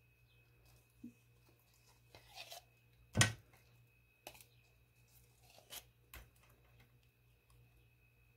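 Metal spoon dropping dollops of sticky peanut butter into a stainless steel mixing bowl: a few scattered soft scrapes and clicks, with one sharp clink of the spoon about three seconds in.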